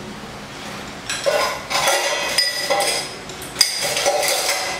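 Dishes and cutlery clinking and clattering in a kitchen: a run of ringing clinks begins about a second in, with one sharp knock a little past halfway.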